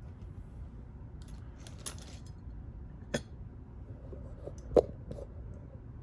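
Small metallic clicks and clinks from a padlock and tools being handled and set down: about four separate taps, the loudest about three-quarters of the way through.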